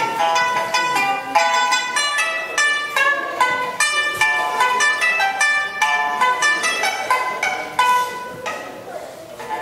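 Pipa (Chinese lute) played solo in a quick run of bright plucked notes that ring briefly. The playing thins out and softens for a moment near the end.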